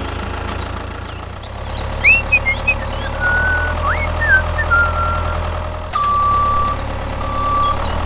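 Steady low drone of a heavy vehicle's engine running, with a few short high chirps a couple of seconds in. Near the end a reversing alarm starts beeping: two even, single-pitched beeps, each about half a second long.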